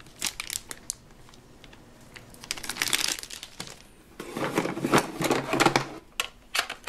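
Handling noise from a toy playset being unboxed: the plastic shrink-wrap on a pack of Play-Doh cans crinkles, then hard plastic toy pieces knock and scrape against the cardboard box as they are slid out, loudest about four to six seconds in.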